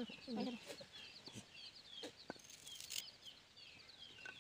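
Chickens: a hen clucks briefly at the start, and chicks peep in quick, repeated falling notes. A few faint clicks of a knife slicing starfruit come through as well.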